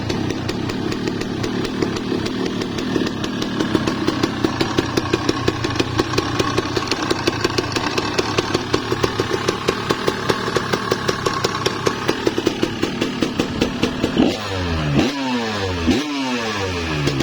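Two-stroke Kawasaki Ninja motorcycle engine idling with a fast, rattly beat, then revved in three quick throttle blips near the end.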